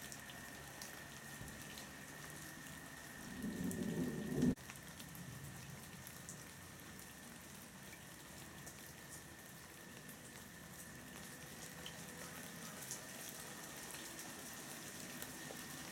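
Steady rain falling into shallow floodwater on paving, a soft patter of drops throughout. A louder low rumble swells for about a second some three seconds in and cuts off abruptly.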